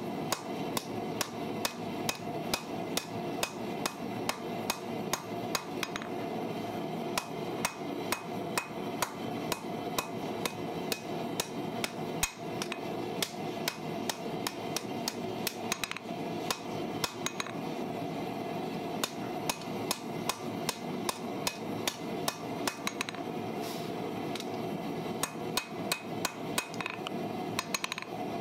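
Ball-peen hammer striking a red-hot steel farrier's rasp on an anvil, about two blows a second with a few short pauses, as the blacksmith forges it into shape. A steady background hum runs underneath.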